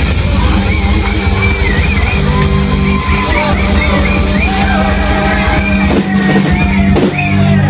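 Live rock cover band playing loud, with a singer's melody over bass, guitar and drums, heard from within a crowd that yells along.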